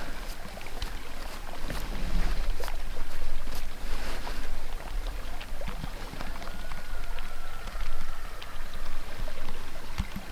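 Wind buffeting the microphone in a snowstorm, a rough, uneven low rumble with scattered small ticks. A faint thin high tone holds from about six seconds in.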